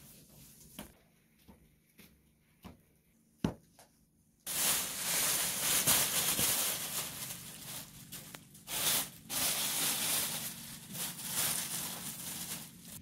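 Clear plastic film crinkling and rustling loudly as it is spread over rows of dough balls, starting suddenly about four and a half seconds in. Before that, only a few faint taps and one sharp click.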